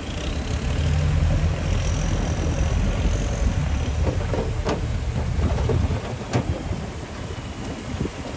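Heavy diesel engine of earthmoving machinery running under load. It rises about a second in and eases off after about six seconds, with a few sharp metallic clanks.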